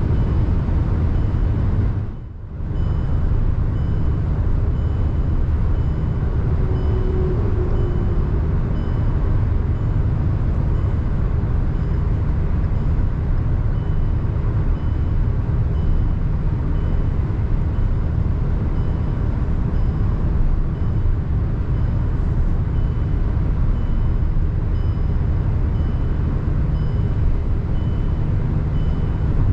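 Steady in-cabin drone of a Kia Sonet's 1.5-litre four-cylinder diesel and its tyres at expressway speed. It drops out briefly about two seconds in. A faint high beep repeats at an even pace through most of it.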